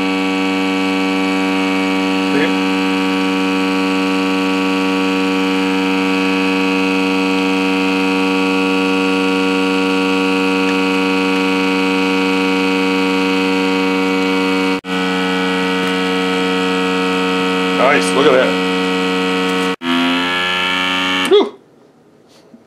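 Countertop vacuum sealer's pump motor running with a loud, steady hum as it draws the air out of a bag. It breaks off briefly about 15 seconds in and again about 20 seconds in, the tone changing after the second break, then stops about 21 seconds in.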